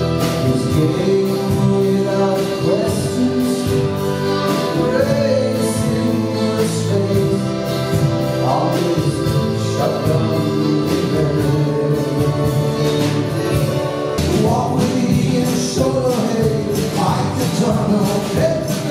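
A small folk band playing live: accordion chords held under fiddle, acoustic guitars and bass, with a steady beat on a small drum kit and cymbal, and voices singing.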